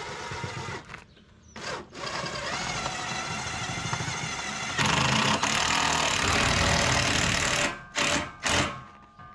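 Cordless drill driving self-drilling screws into a steel box tube: a steady motor whine in several runs, louder from about five seconds in, ending with two short bursts near the end.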